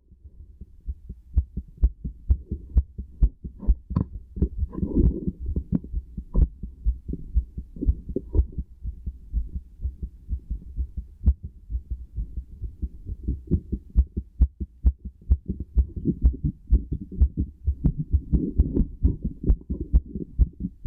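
Human heartbeat heard through a stethoscope: a quick, regular run of dull low thumps. Rustling noise comes in over the beats about five seconds in and again near the end.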